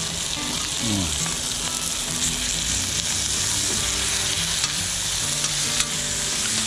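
Pork belly pieces, onion rings and garlic sizzling steadily in their fat on a flat griddle plate, with a metal spoon scraping and stirring them on the plate.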